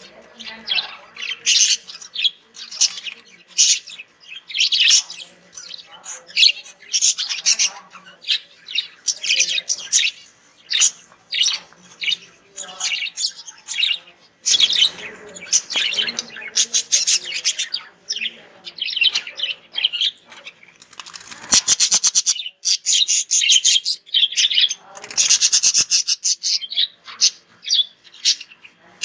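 Pet budgerigars chirping and warbling continuously in short high calls, with a fast run of clicking chatter about three-quarters of the way through.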